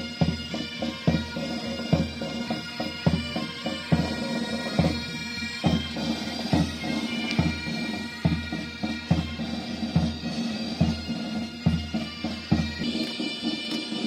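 Military pipe band playing a march: bagpipes over their steady drone, with bass drum strokes a little under one a second. The drum stops shortly before the end while the pipes play on.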